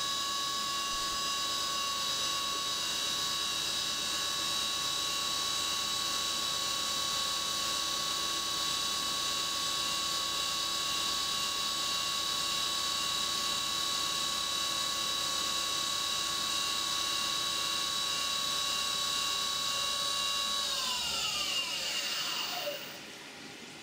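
CNC mill spindle driving an end mill through a relief cut under flood coolant: a steady high-pitched whine over the hiss and splash of the coolant. A couple of seconds before the end the spindle spins down, its whine falling in pitch and the sound dropping away.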